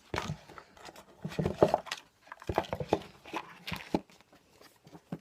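A phone box and its packaging being handled and opened: an irregular run of short taps, clicks and rustles.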